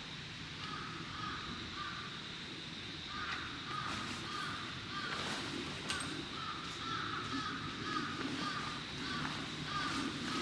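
Birds calling over and over in short, quick calls, with a faint steady high tone underneath.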